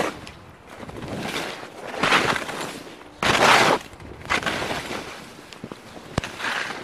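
Skis carving turns on snow, a scraping hiss that swells and fades about once a second, the loudest turn about halfway through, with a couple of sharp clicks near the end.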